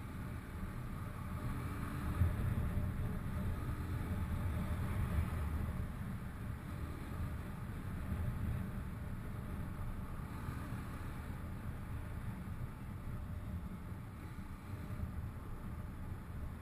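Honda street motorcycle under way at about 50–60 km/h: a steady low engine rumble mixed with wind and road noise on the camera's microphone.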